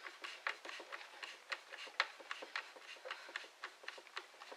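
Light clicking of a hand screwdriver turning screws into the plastic housing of a cordless drill, a quick run of small ticks about three or four a second.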